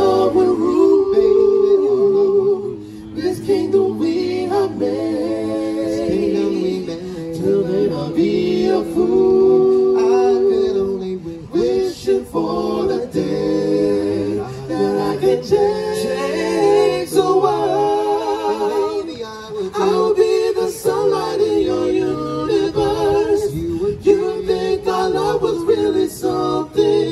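Four-voice a cappella vocal group singing sustained close harmonies over a sung bass line, with no instruments.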